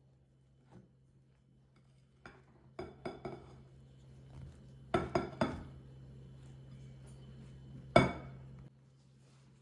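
Metal whisk knocking and clinking against a glass mixing bowl while stirring a thick cookie mixture: scattered light clicks, a quick cluster about five seconds in, and one loud knock about eight seconds in.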